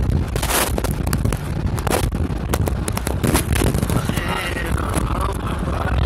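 Sleet pellets hitting a car's windshield in quick, irregular clicks, over the low rumble of the car driving.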